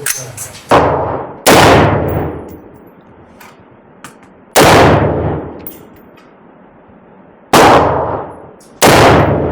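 Five single gunshots from a firearm, fired one at a time at uneven intervals, each a sharp crack with a long ringing tail.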